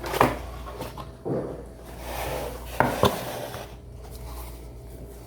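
A graphics card's cardboard retail box being opened and handled: a few sharp knocks and clicks with scraping and rustling of cardboard and packaging in between.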